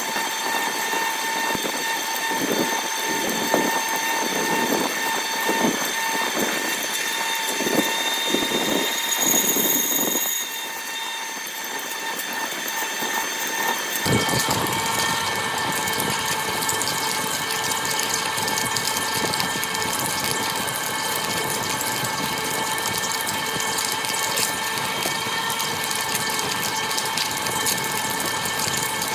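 Manual metal lathe running and machining metal, with a steady multi-tone mechanical whine and a repeating scraping texture from the cut; the sound changes abruptly about halfway through, taking on more low rumble.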